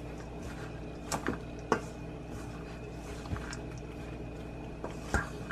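Wooden spatula stirring a thick, crumbly cookie dough in a stainless steel bowl, with a few short knocks of the spatula against the bowl: about a second in, again shortly after, and once near the end.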